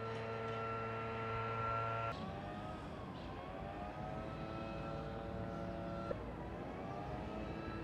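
Motor vehicle engines in street traffic, a steady pitched hum whose pitch dips and rises. The sound changes abruptly about two seconds in and again about six seconds in.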